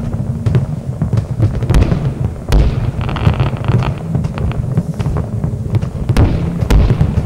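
Fireworks going off: many sharp bangs and crackles over a constant low rumble, with a spell of hissing crackle about three seconds in.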